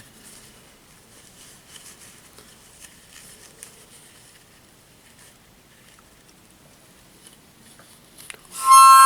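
Faint rustling and small clicks of handling as the object is worked out of a sock, then, a little over eight seconds in, a harmonica blown loudly in one held chord.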